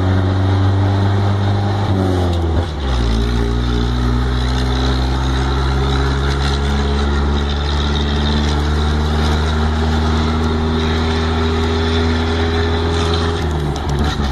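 Chevrolet D10 pickup's Perkins diesel engine, heard from inside the cab as the truck drives along. The revs drop sharply at an upshift about two and a half seconds in, then climb slowly and steadily under load, and drop again near the end.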